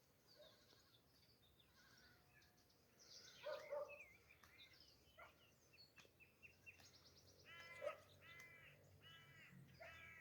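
Birds outdoors: small birds chirping throughout, and a crow cawing four times in a row in the second half, with a louder call a few seconds in.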